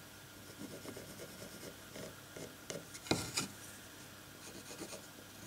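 Faint pencil scratching on the side of an alder block as a profile line is drawn, with a few light knocks of the wood against the bench about three seconds in.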